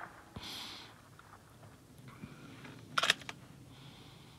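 Bolt of a Mauser M18 rifle being worked between shots: a short sliding sound near the start, then a quick cluster of sharp metallic clicks about three seconds in as the action is cycled.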